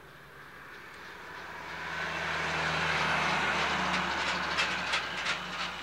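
A large vehicle passing close by: a rushing noise swells over the first few seconds over a low steady hum, then a series of sharp clacks comes in near the end.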